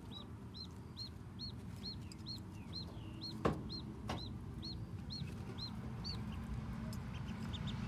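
Newly hatched duckling peeping: a steady run of short high peeps, a little over two a second, that stops about six seconds in, with a few fainter peeps near the end. A sharp click about halfway through, over a steady low background hum.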